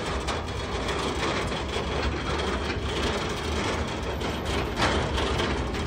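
Heavy steel grill on a small-wheeled cart rolling and rattling over asphalt as it is towed slowly behind a pickup truck, with the truck's engine running low underneath. A sharper clatter comes near the end.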